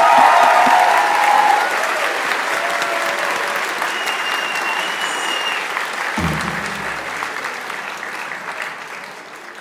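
Concert audience applauding and cheering at the end of a song, with shouts in the first second or so. The applause dies away gradually, and there is a short low thump about six seconds in.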